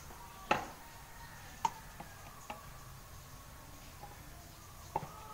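A few light clicks and knocks of plastic, a spatula and plastic cups handled while stirring colour into soap batter. The first, about half a second in, is the loudest, and the others are spaced a second or more apart.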